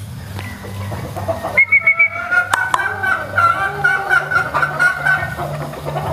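Chickens clucking and calling, with a long wavering call held from about three seconds in almost to the end. A quick run of sharp taps comes about two seconds in.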